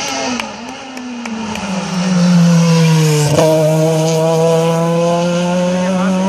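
Rally car engine running hard: its note falls about a second in, then holds a loud, steady pitch as the car comes through, with one sharp click a little past halfway.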